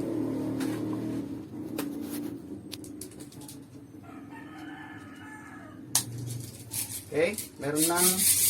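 A rooster crows once, a pitched call of almost two seconds starting about four seconds in. Scattered sharp clicks of hard plastic being handled come around it, with the loudest click right after the crow.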